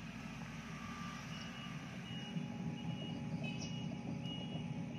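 Tracked excavator's diesel engine running steadily, with its high single-tone travel alarm beeping repeatedly from about a second in as the machine moves along the dirt road.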